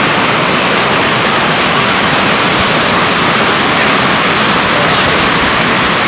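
Heavy surf breaking, a steady, even rush of waves and foam with no pauses.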